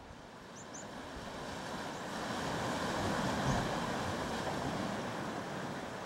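Sea surf washing against the rocks of the shore, swelling to a peak around the middle and then easing.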